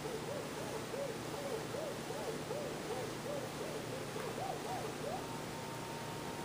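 A pure tone being scratched on a Numark PT01 Scratch portable turntable: the record is pushed back and forth by hand, each stroke a rising-and-falling swoop in pitch, about two or three a second. A little after five seconds the record is let go and the tone holds steady.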